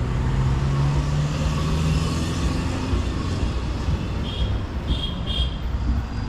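A car passing on the road, its engine rising in pitch over the first couple of seconds over steady traffic noise. Three short high chirps sound a little past the middle.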